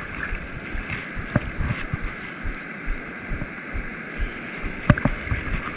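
Ocean surf washing in over the shallows, with wind on the microphone and a few short sharp knocks, the loudest a little under a second before the end.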